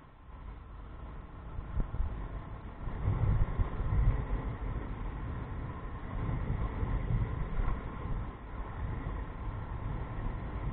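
Wind buffeting on the microphone and road noise from a moving motorcycle, with a faint steady engine hum underneath; the rumble grows louder about three seconds in.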